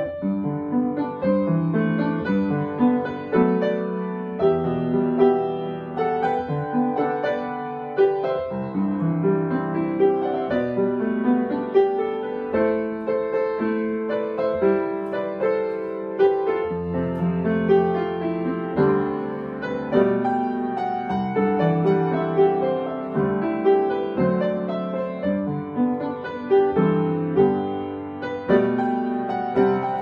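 Background piano music, a steady flow of notes.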